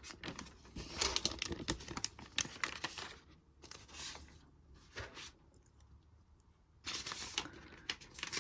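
Protective wrapping being peeled and crinkled off a new Apple Magic Keyboard: bursts of tearing and rustling, a quieter gap a little past the middle, then another stretch of rustling near the end.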